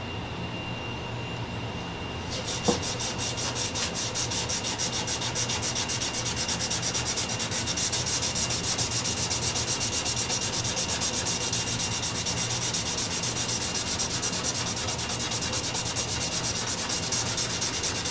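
Applicator pad rubbed quickly back and forth over a bare wood board, working in leather dye straight from the bottle. It is a steady, rhythmic scrubbing that starts about two seconds in, just after a single sharp knock.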